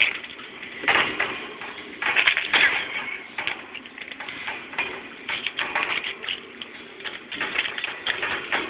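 Paper crinkling and rustling in irregular crackly bursts as kittens bat, grab and bite at it.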